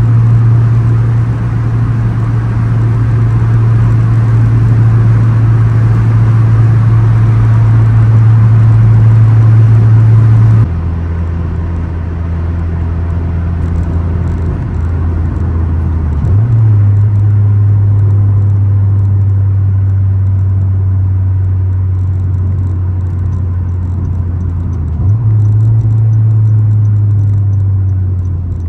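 A 9th-generation Honda Civic Si's 2.4-litre four-cylinder with an aftermarket downpipe and exhaust, heard inside the cabin as a loud, steady low drone at highway speed. The drone drops off suddenly about ten seconds in, then the revs jump up twice as the car slows and is shifted down.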